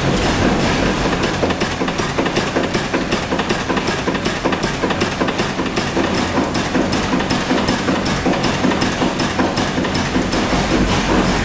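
Steam-powered mill machinery running, a steady mechanical clatter at about four to five beats a second over a constant low rumble.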